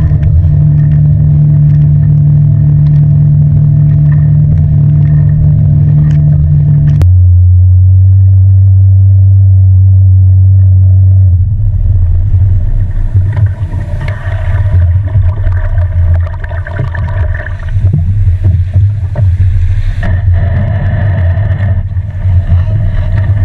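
Yamaha Enduro two-stroke outboard motor running on the boat at a steady high pitch. About seven seconds in the sound switches abruptly to a lower, steady engine tone. From about eleven seconds on it runs slowly and unevenly, rising and falling in level.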